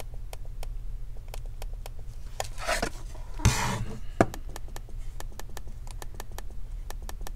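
Dell laptop touchpad clicker pressed over and over, sharp clicks about four a second; the touchpad sits loose, pushed up by a swollen battery beneath it, yet its clicker still clicks. About halfway the clicking breaks for a short rustle and a couple of louder knocks.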